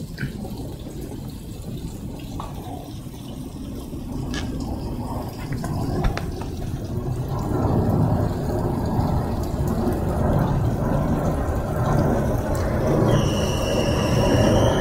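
Rain falling steadily on a concrete patio and wet ground, growing louder about halfway through. Near the end a steady high-pitched screech of unknown origin sets in and holds.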